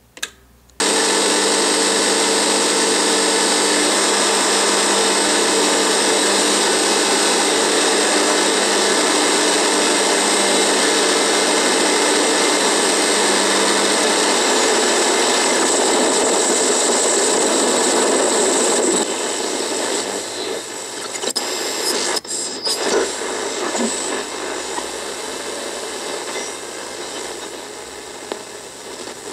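Radio buzzing: a loud, steady electrical buzz with a hiss of static. Past the middle it drops in level and turns rougher and more uneven.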